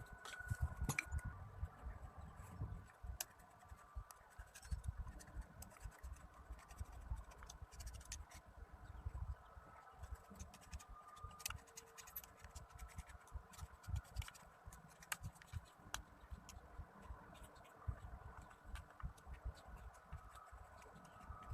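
Irregular scraping and many small light clicks from things being handled, over an uneven low rumble.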